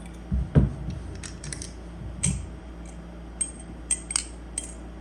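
Tsunami balisong (butterfly knife) being flipped: its metal handles and blade click and clink against each other in a quick irregular series, with two dull thuds about half a second and two seconds in.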